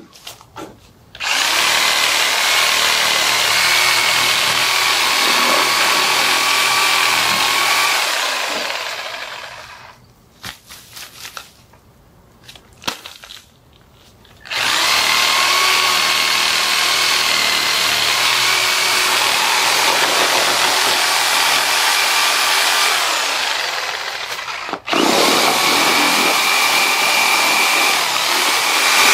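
Corded reciprocating saw with an 8-inch wood and demolition blade cutting through thick shrub roots in the soil, its motor running at a steady high whine. It cuts in three runs: a long one, a pause of about five seconds filled with soft clicks and rustling, a second long run, then a break of under a second before it starts again. The user judges the blade to be dull.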